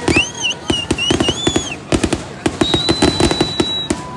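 Fireworks going off in quick succession: many sharp bangs and crackles, with high whistling tones over them, arching in the first two seconds and then one held whistle near the end.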